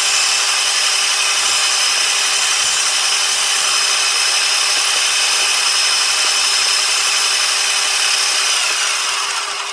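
Wood lathe running with a turning tool cutting the spinning wood: a steady hissing scrape over a constant motor hum, fading near the end.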